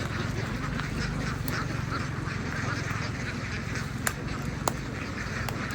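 A large flock of domestic ducks quacking all at once in a dense, overlapping chatter, with two sharp clicks about four seconds in.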